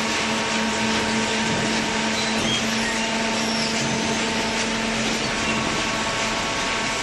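Automatic horizontal hydraulic carton baler running: a steady hum from its motor and hydraulic pump over a constant mechanical noise.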